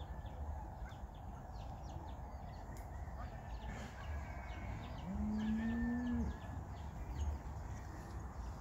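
A cow moos once about five seconds in: a single call of about a second that rises at the start and then holds steady. Faint bird chirps sound around it.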